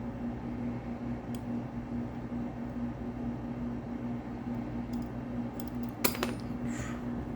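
A lock pick clicking and scraping against the wafers of a small vintage wafer lock held under light tension: scattered faint metal clicks, then a sharper cluster of clicks about six seconds in, followed by a brief scrape.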